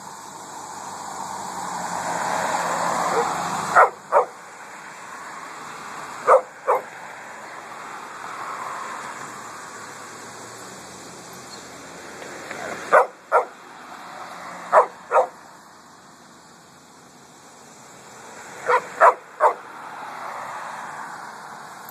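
Chihuahua barking in short, sharp yaps, mostly in quick pairs with a triple near the end, about a dozen in all. The barks come over the rising and fading noise of passing vehicles that the dog is barking at.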